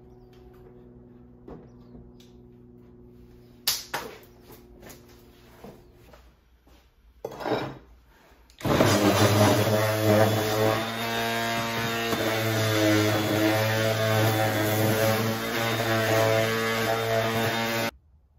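Random orbital sander starting a little under halfway in and running steadily with a hum while sanding a 2x4 board, then cutting off abruptly near the end. Before it, a few light knocks from the lumber being handled.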